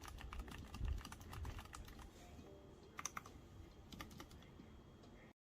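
Typing on a mechanical keyboard fitted with OEM-profile PBT pudding keycaps: a run of quick key clicks at an uneven pace, which stops abruptly near the end.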